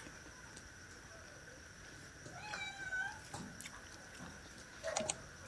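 A domestic cat meowing once, a short call about two and a half seconds in, with a briefer second call near the end.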